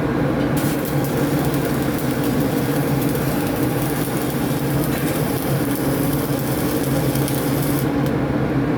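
Stick (shielded metal arc) electrode welding: the arc crackles and hisses over a steady low hum, striking about half a second in and breaking off about a second before the end.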